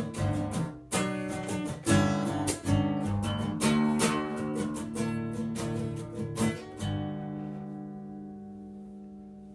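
Strummed acoustic guitar closing out a song, ending on a final chord that rings on and slowly fades from about seven seconds in.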